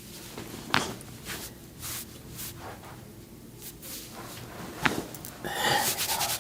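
Spinal joints cracking during a chiropractic adjustment: two sharp pops about four seconds apart, with soft breaths between. A louder, rapid rhythmic rubbing starts near the end.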